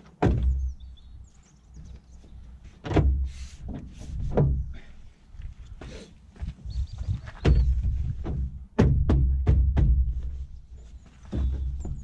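Plastic door card of a Fiat Scudo van's front door being knocked and pressed home onto its new retaining clips by hand: a series of dull thunks, coming faster in a cluster a little after the middle.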